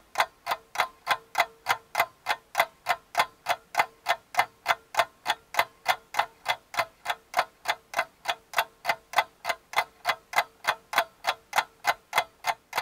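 Even, rapid clock-like ticking, about four sharp ticks a second, with a faint steady hum beneath.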